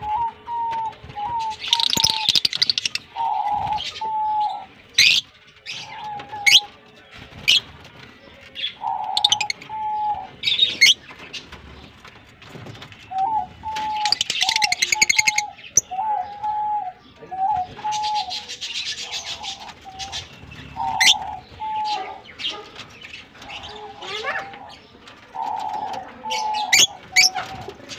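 A flock of lovebirds, Fischer's lovebirds among them, chirping and chattering in shrill bursts and sharp high calls, over a run of short, repeated lower notes.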